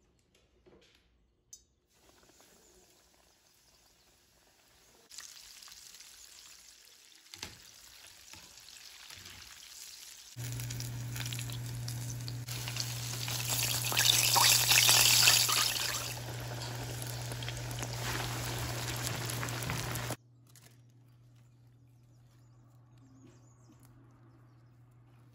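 Coated chicken pieces deep-frying in hot oil, a sizzling hiss over a steady low hum. The sizzle swells in steps and is loudest around the middle, then cuts off suddenly near the end.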